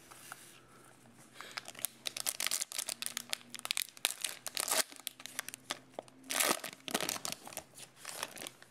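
Plastic wrapper of a Donruss football card pack being torn open and crinkled by hand: a dense run of quick crackles, loudest about two-thirds of the way through, as the cards are worked out of the pack.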